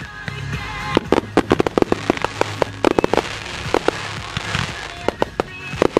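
Fireworks going off in rapid clusters of sharp pops and crackles from glittering aerial bursts and ground fountains, with music playing alongside.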